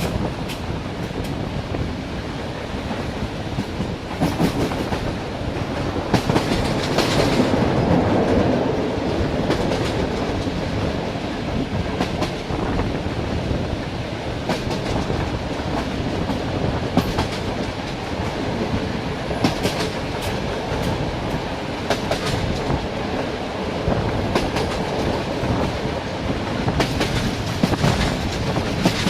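Train wheels rolling along the rails: a continuous rumble with sharp clacks as the wheels cross rail joints, swelling for a few seconds about a quarter of the way through.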